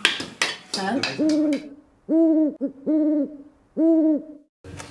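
Owl-like hooting: about five short hoots, each held at one even pitch, with brief gaps between them. Table clatter of dishes and cutlery comes before the first hoot.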